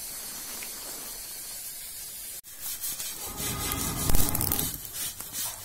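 A steady hiss, then after a cut about two and a half seconds in, an open cooking fire of glowing embers in a hearth burning with a low rumble and scattered crackles.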